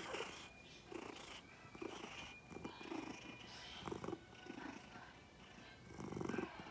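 Orange tabby cat purring faintly in soft rough pulses that come and go, the loudest near the end.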